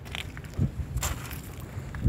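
Wind rumbling on the microphone over choppy sea water washing against a barge's steel deck, with two short sharp sounds about a quarter second and a second in.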